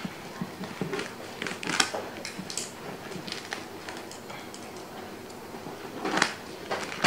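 Scissors cutting and hands tearing at packing tape and plastic wrap on a parcel: scattered crinkling and scraping with a few sharper snips and rips, the loudest about two seconds in and near the end.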